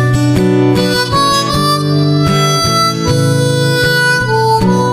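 Background music: a melody of held notes changing every half second or so over a plucked accompaniment.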